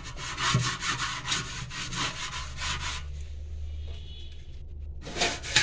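Half a lemon coated in detergent and baking-soda paste scrubbed back and forth over a stainless steel sink in quick repeated rasping strokes. The rubbing pauses about three seconds in and starts again near the end.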